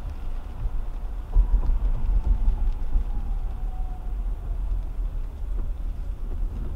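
Steady low road rumble of a 2010 Toyota Camry driving on a wet highway, heard inside the car's cabin. A windshield wiper sweeps across the glass near the end.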